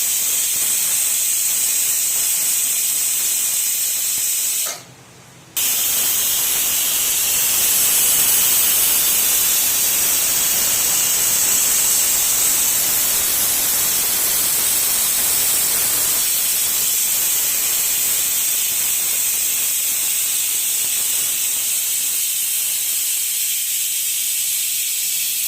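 Pressure cooker venting steam through its whistle valve, a steady high hiss that cuts out briefly about five seconds in.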